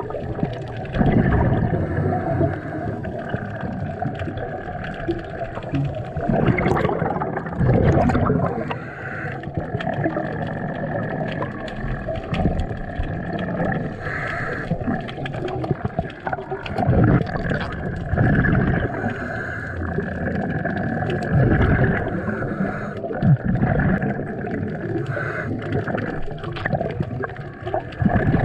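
Scuba diver breathing through a regulator underwater: bursts of exhaled bubbles gurgling past the camera every few seconds, over a continuous underwater hiss.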